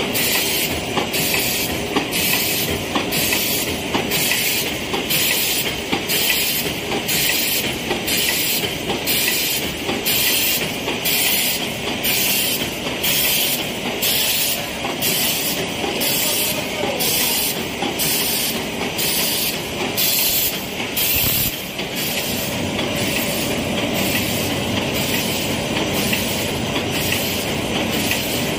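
Gummy candy depositing line running: steady machine noise with a regular clatter, about three beats every two seconds, as the chain conveyor carries the mould trays along.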